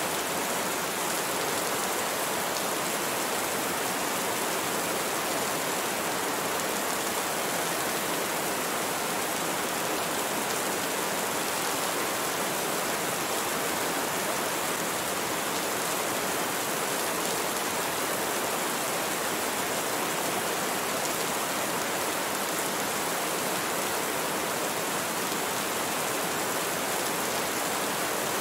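Steady rain falling: an even, unbroken hiss with no thunder.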